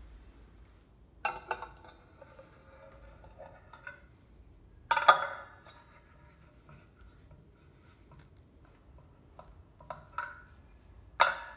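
A metal wrench clinking against the chrome hubcap and centre bolt of a Fiat 500 wheel as the bolt is tightened: a few sharp clinks with a short ring, the loudest about five seconds in and a cluster near the end.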